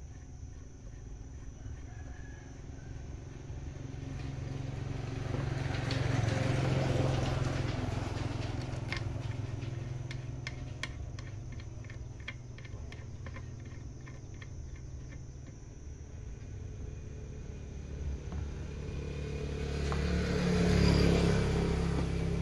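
Low engine rumble that swells and fades away twice, as of motor vehicles passing by, with a quick run of light clicks about halfway through.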